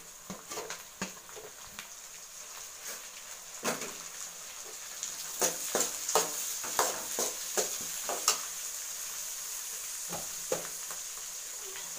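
Chopped onions, green chillies and freshly added tomatoes sizzling in oil in an aluminium kadai, with a steel ladle scraping and knocking against the pan as they are stirred. The knocks come thickest through the middle, over a steady sizzle.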